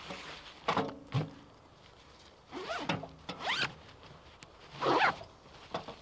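A zipper pulled in several short strokes, the middle pulls rising in pitch, with a couple of light knocks about a second in.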